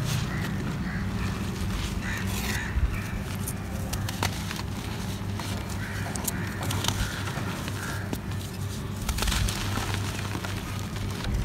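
Chunks of dry earthen floor material crushed and crumbled by hand: irregular dry crunching and crackling with a few sharper snaps, and grit and powder trickling from the fingers.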